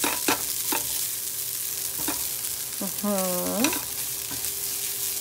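Silicone spatula stirring and scraping buckwheat kasha with shallots and garlic around a hot nonstick frying pan, with repeated short scrapes over a steady sizzle.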